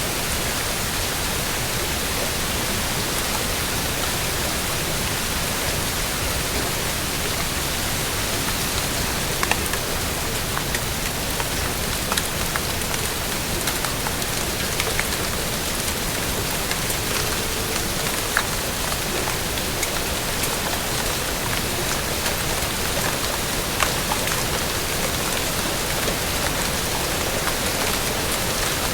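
Steady rain falling, an even hiss with scattered individual drops ticking on a surface.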